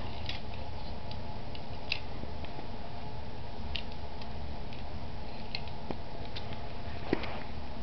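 Scattered faint clicks and ticks of small die-cast toy cars being moved by hand on carpet, one sharper click about seven seconds in, over a steady low hum.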